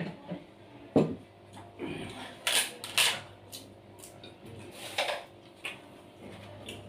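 Eating sounds: several short, sharp crunches of someone biting and chewing crisp fried food, the loudest about a second in.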